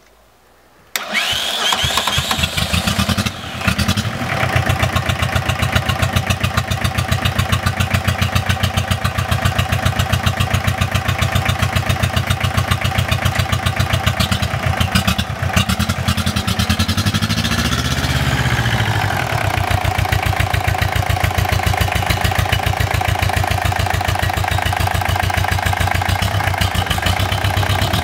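Homemade tractor's diesel engine, built from half of a passenger car's 1.6-litre diesel, starting about a second in, faltering briefly, then running with an even, steady beat. Partway through the engine note rises and settles again at a different pitch.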